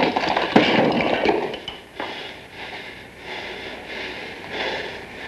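A man panting and gasping hard for breath after a beating in a fist fight, quick rasping breaths about two a second, loudest in the first second or so and easing after.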